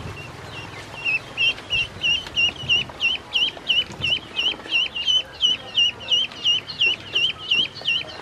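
Duckling peeping in a rapid, even series of short high peeps, about four a second, starting about a second in.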